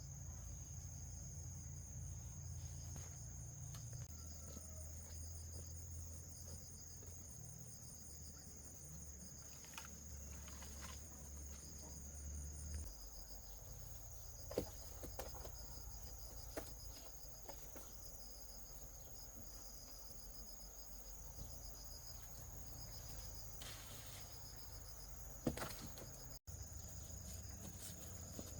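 Insects, such as crickets, chirping in a steady, high-pitched chorus. Two sharp knocks stand out, one about halfway through and a louder one near the end, over a faint low hum.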